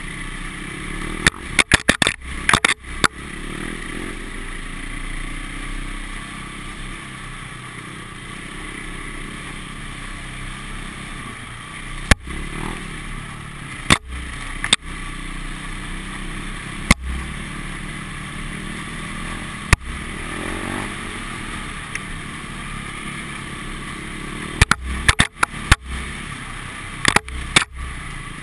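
Off-road motorcycle engine running steadily along a rough dirt track, its note wavering a little with the throttle. Sharp knocks and clatters cut through it, bunched at the start and near the end with single ones between.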